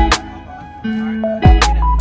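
Background music with a beat: deep kick drums, ticking hi-hats and a melody. The drums drop out shortly after the start and come back about a second and a half in.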